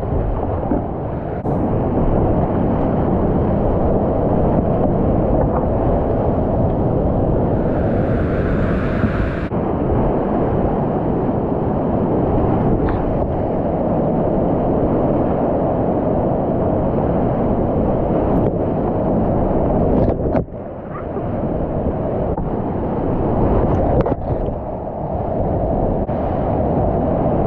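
Rushing whitewater of a river rapid as a kayak runs it, close to the microphone, a loud steady roar of water. The noise dips sharply for a moment about twenty seconds in, then comes back.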